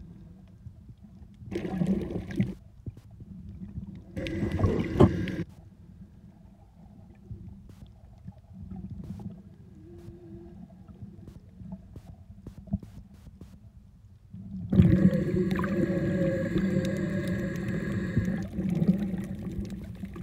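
Muffled underwater sound picked up by a snorkeler's camera below the surface: a steady low rumble of water, broken by two short loud bursts of water noise early on and a louder stretch of about five seconds near the end that holds several steady tones.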